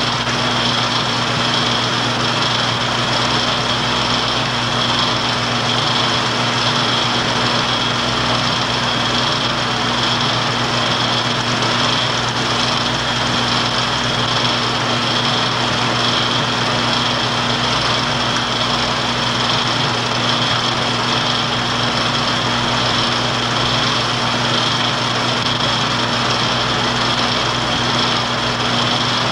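Film projector running: a steady, unchanging mechanical whir with a low hum and a high-pitched whine.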